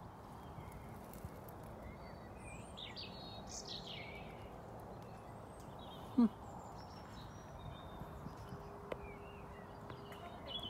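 Small birds chirping and singing over steady background noise, with a single short, louder low sound about six seconds in.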